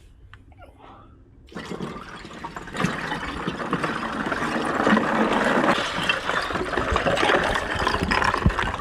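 Rushing, splashing water that starts about a second and a half in and grows louder.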